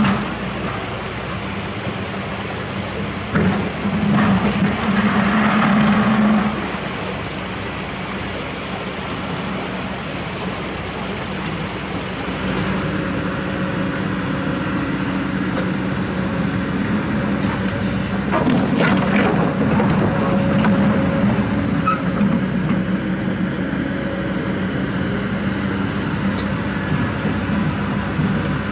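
Kobelco SK200 excavator's diesel engine running steadily, swelling under hydraulic load as the arm and bucket work. Rocks knock and scrape against the bucket, with a cluster of sharp clunks about two-thirds of the way in.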